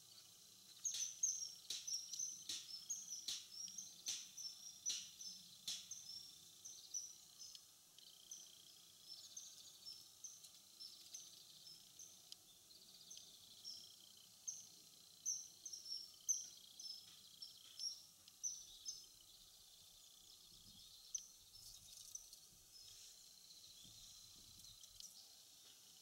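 Common kingfisher calling: a long, unbroken series of short, shrill, high notes, several a second, strongest over the first few seconds and thinning out about two-thirds through, with a few more notes near the end. A continuous series like this is the kingfisher's song, as opposed to its single-note call.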